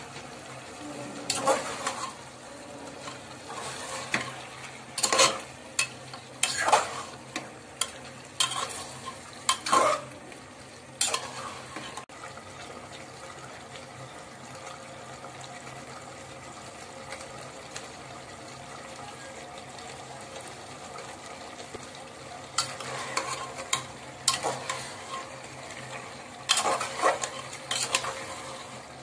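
Beef frying in an aluminium pressure cooker with a steady sizzle, while a metal spoon stirs the meat and clinks and scrapes against the pot. The clinks come in clusters through the first ten seconds or so and again near the end, with plain sizzling in between.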